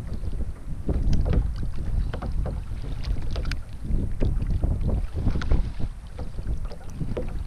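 Wind buffeting the microphone at sea, a steady low rumble, with scattered small clicks and knocks over it.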